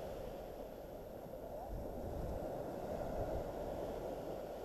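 Small waves washing onto a sandy beach, a steady rush, with wind buffeting the microphone.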